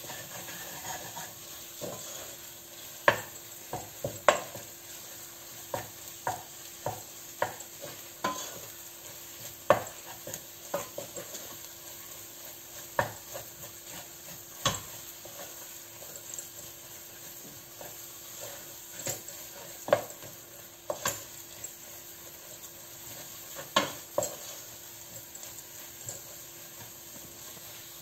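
Wooden spoon stirring and scraping a thick roux of flour, fat, scallion and ham in a stainless steel pot, knocking against the metal at irregular intervals over a faint steady sizzle as the flour cooks in the fat.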